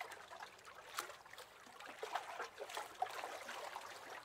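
Little waves lapping against the hull of a wooden rowing boat: faint trickling water with scattered small splashes.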